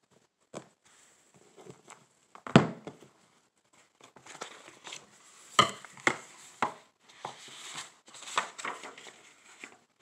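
Paper pages of a paperback picture book being handled and turned: rustling, with several short flaps and taps, the loudest about two and a half seconds in.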